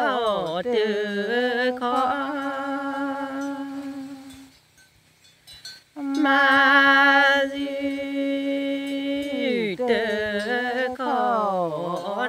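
A single voice chanting a Pgakenyaw (Karen) tha poem unaccompanied: long held notes that waver and fall away at the ends of phrases. The voice breaks off for about a second and a half around the middle, then comes back in on a strong held note.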